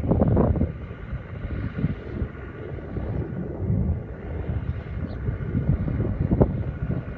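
Wind buffeting the phone's microphone in gusts: a rumbling noise that swells and drops every second or two, with a faint steady hum underneath.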